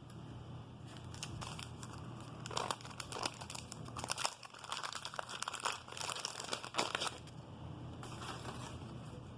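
A 1988 Donruss wax-paper card pack being torn open and crinkled by hand. A run of sharp crackles comes from about two and a half to seven seconds in.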